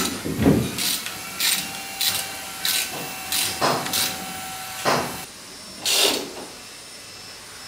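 Socket ratchet wrench being worked on a bolt through a wooden door frame: short bursts of ratchet clicking with each stroke, about eight of them at uneven spacing, after a low knock at the very start. A faint steady whine sits behind them and stops about five seconds in.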